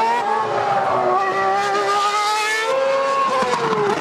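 Formula One race car engine sound, a steady high engine note that drifts slowly in pitch, steps up about two-thirds of the way through, then sinks again.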